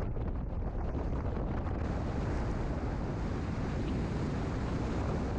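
Wind buffeting the microphone of a camera mounted on a moving car, a steady low rushing rumble with road noise under it; the hiss turns a little brighter about two seconds in.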